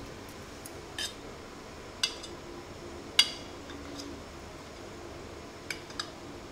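Steel spoon clinking against a stainless steel bowl while stirring salt into thick lentil paste: about five separate clinks, the loudest about three seconds in.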